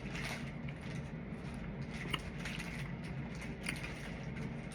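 A person chewing food, with a few brief mouth clicks over a steady low background hum.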